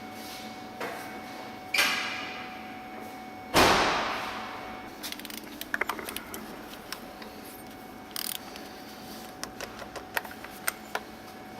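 Two heavy thuds with a reverberant tail, about two and three and a half seconds in, like doors being shut, followed by a scatter of light clicks and taps.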